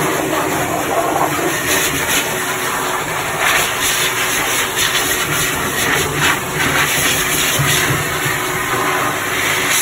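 Electric blower dryer running steadily, a constant rush of air with a faint hum under it, as it blows the water out of a wet dog's coat.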